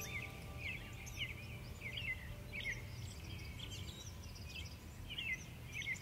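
Small birds chirping, short quick chirps several times a second, over a steady low rumble.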